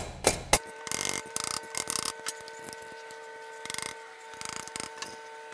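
Soft mallet tapping an exhaust H-pipe collector onto the header pipes to seat it: three quick knocks in the first half-second. Light tool clicks and rubbing follow over a faint steady hum.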